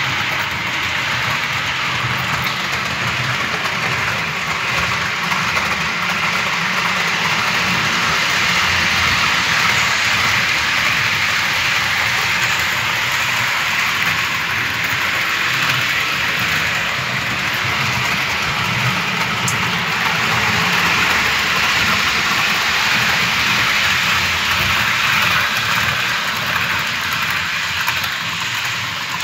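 Model train running around a layout: a model Taurus electric locomotive in FLIXTRAIN livery hauling its coaches, with a steady whirring and rolling noise of the motor and wheels on the track.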